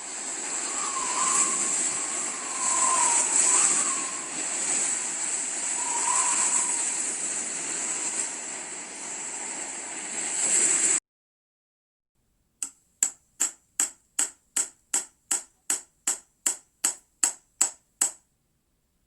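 Two recorded sound effects played one after the other: about eleven seconds of a steady rushing noise that cuts off abruptly, then, after a short gap, a run of about sixteen sharp, evenly spaced clicks, roughly three a second.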